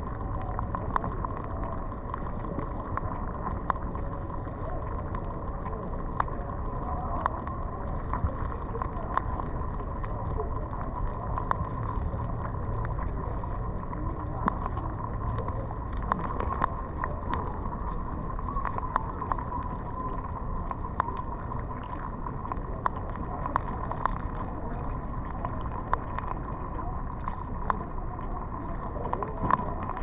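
Underwater sound picked up by a GoPro in its housing while drifting in shallow sea: a steady muffled rumble of moving water, with irregular sharp clicks and crackles and a faint steady hum.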